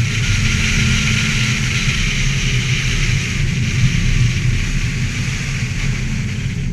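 A Ford Festiva's engine running at a fairly steady pitch as the car drives the course, a rough low rumble under a steady hiss.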